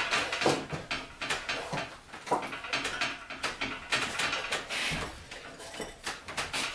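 Moped tire being forced by hand over the edge of the wheel rim: irregular rubbing, creaking and clicking of rubber against the metal rim.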